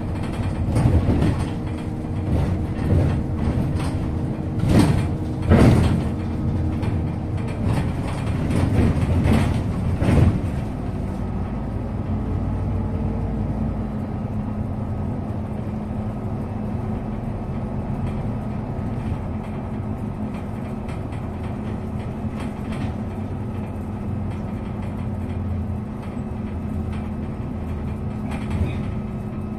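MAZ-215 articulated city bus running, heard from inside the passenger cabin: a steady engine and drivetrain hum with a held whine that shifts pitch a few times. Loud knocks and rattles come repeatedly through the first ten seconds or so, then the run goes on smoothly and evenly.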